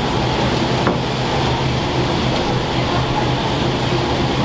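Steady hum and rushing noise of running kitchen machinery, with one faint click about a second in.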